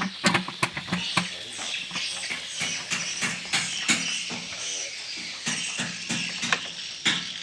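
Hand tools and metal engine parts clicking and knocking irregularly, with many sharp taps, as parts are fitted onto an engine.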